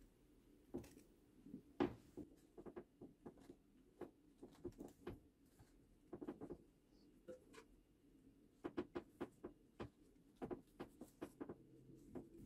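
Faint, irregular clicks and scrapes of a threading die in a hand-turned die stock cutting 1/2-28 threads into a steel rifle barrel, coming in short clusters as the handles are worked.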